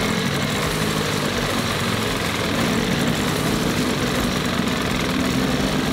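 Old Johnson 40 two-stroke outboard motor running steadily in a test barrel of water, its propeller churning and splashing the water. The motor is running in gear because the shift lever has broken and it cannot be put back into neutral.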